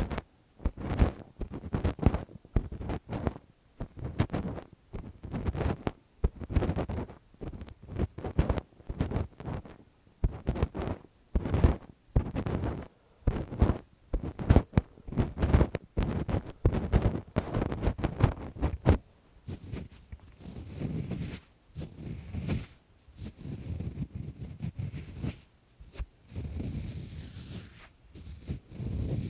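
Lace-gloved fingers rubbing and scratching against a microphone's ears in quick, irregular strokes, lighter and hissier in the last third.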